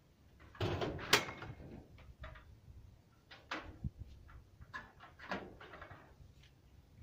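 Irregular knocks, scrapes and clicks as a garden hose is coiled up by hand and its loops and end knock and drag on a flat concrete roof, with one sharp click about a second in.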